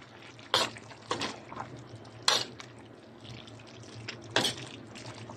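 Metal spatula stirring pork, potatoes and sauce in a wok, scraping against the pan a few times, over the faint bubbling of the simmering sauce.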